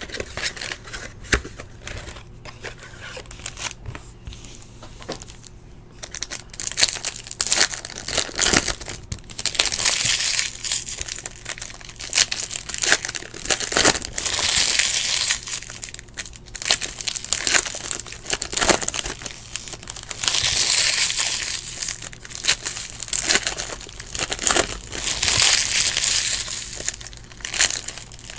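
Plastic shrink wrap and foil trading-card packs being crinkled and torn open by hand, in four crinkling bursts a few seconds apart, with clicks and taps of card handling between them.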